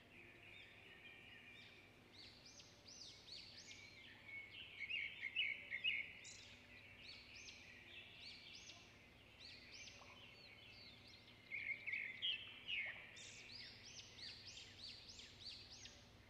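Small birds singing and chirping without pause, a fast run of high twittering notes and quick upward sweeps, with busier bursts around five seconds in and again near twelve seconds.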